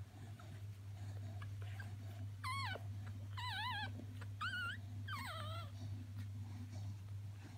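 Newborn cocker spaniel puppy squealing: four high, wavering cries in quick succession about midway, as the litter jostles for teats while nursing. A steady low hum runs underneath.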